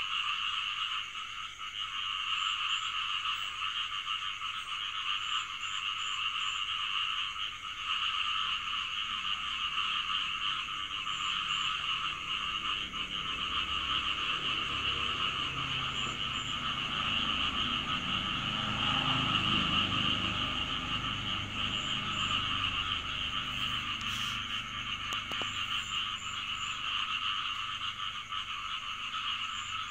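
Steady, dense chorus of frogs croaking, with a low rumble that swells and fades in the middle.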